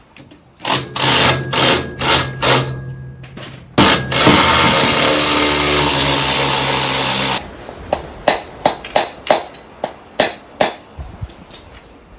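Handheld power tool, run in about five short bursts and then in one steady run of about three seconds, during work on the washing brushes of a kelp-washing machine. A string of sharp knocks follows.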